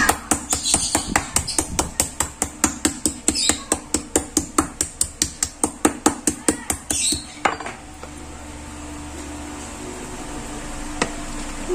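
Meat mallet pounding chicken breast flat on a cutting board: rapid, even strikes several a second that stop about seven and a half seconds in. A low steady hum is left.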